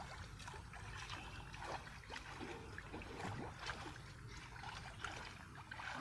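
River water sloshing and splashing around someone wading chest-deep, with many small, irregular splashes and rustles as he pushes in through half-submerged branches.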